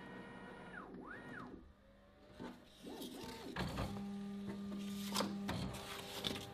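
Bambu Lab X1-Carbon 3D printer running, its fans humming steadily and its stepper motors whining in a pitch that rises and falls about a second in as the toolhead moves. Clicks and knocks in the second half.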